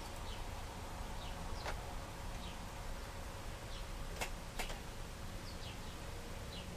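Small screws being driven with a Phillips screwdriver into a laptop screen frame: two light, sharp clicks about four seconds in, over a steady background hiss with faint short high chirps.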